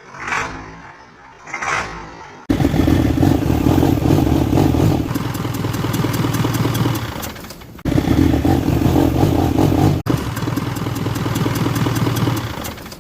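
Isuzu 4HK1 four-cylinder turbo diesel engine running loudly, with a rhythmic ticking through it: the knock under repair. It comes in suddenly after three short swells.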